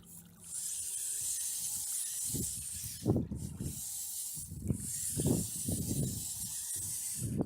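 Running meltwater hissing steadily, with gusts of wind buffeting the microphone in low rumbles several times from about two seconds in.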